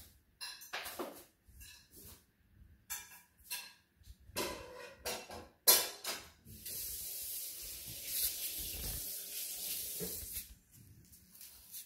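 French bulldog gnawing on a wooden ruler: a run of short crunching bites and scrapes, the loudest a sharp knock about halfway through. This is followed by about four seconds of steady hissing scrape.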